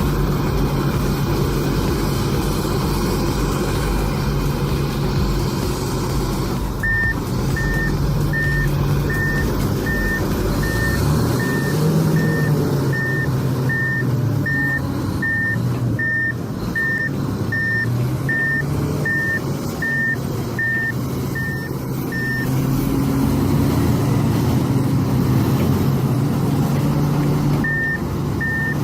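Heavy diesel machine's engine running steadily, with a reversing alarm beeping about twice a second for some fifteen seconds. The beeping stops, then starts again near the end.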